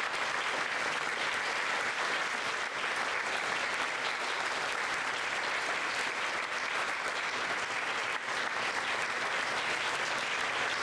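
Audience applauding steadily, a dense, sustained round of clapping.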